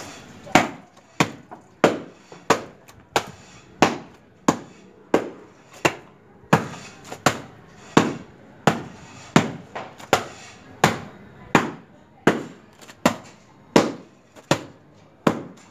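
Wooden washing paddle (thapi) beating a wet towel on a washing stone: sharp wet slaps at a steady pace of about three every two seconds.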